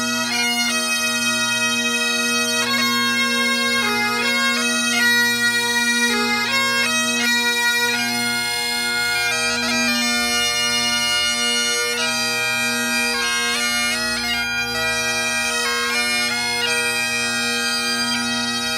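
Three Great Highland bagpipes playing a tune in unison. The drones hold one steady low note under the chanters' changing melody.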